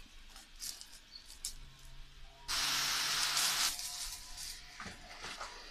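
A loud hiss of about a second, starting and stopping abruptly about two and a half seconds in, over a faint steady low hum.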